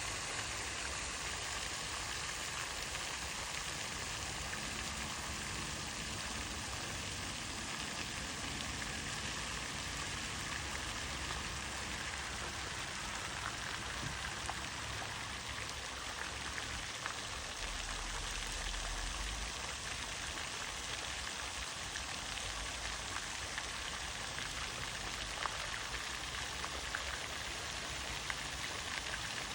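Steady rain falling, with scattered faint ticks of single drops.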